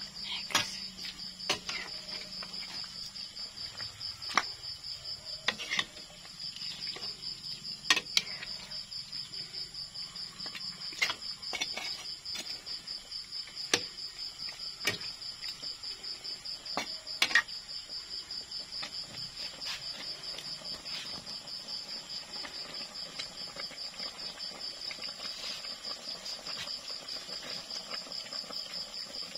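Crickets trilling steadily at a high pitch, with a metal ladle clinking against the pan now and then.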